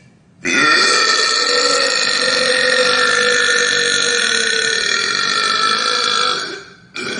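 One long, loud burp, lasting about six seconds. It starts just under half a second in, rises briefly in pitch, then holds a steady pitch before fading out.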